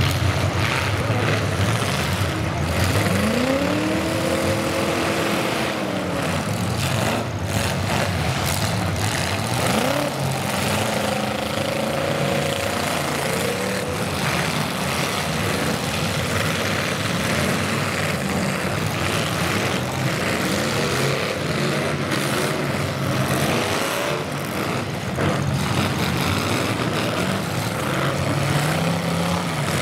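Demolition derby cars' engines revving hard, their pitch rising and falling again and again over a constant din of other running engines, with a few sharp knocks about eight seconds in.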